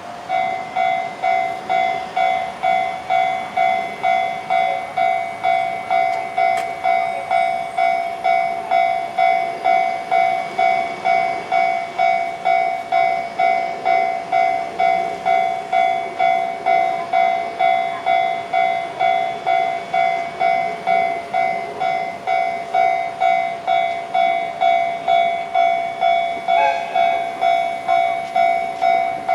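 Japanese railway level-crossing alarm sounding its electronic bell, an even ding-ding of about two strikes a second. Near the end a brief, slightly falling tone sounds over it.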